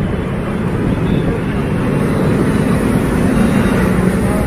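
Steady low rumble of road-vehicle noise from a vehicle in motion.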